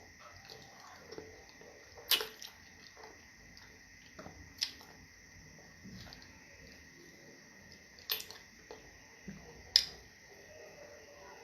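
Close-up eating sounds of fufu and stew: wet mouth smacks and soft squishing, with four sharp lip-smacking clicks spread through.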